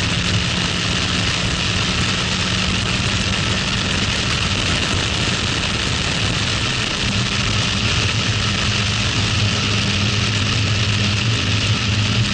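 Toyota MR-S's 1.8-litre 1ZZ-FE four-cylinder engine on its stock exhaust, running hard at track speed, mixed with heavy wind and road noise in the open cockpit. A few seconds in, the engine note drops lower and grows stronger as the car slows for a corner.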